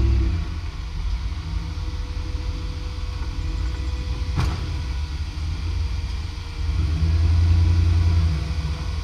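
Rock-crawling buggy engine running in low gear on the trail, getting louder for about a second and a half near the end. A single sharp knock about four and a half seconds in.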